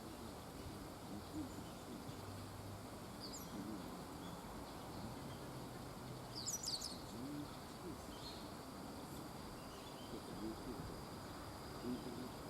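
Small birds calling with short, sharp chirps: a couple around three seconds in, a quick cluster of several about halfway through (the loudest moment), and a faint one later. Underneath runs a steady wash of noise, with a thin, steady high tone.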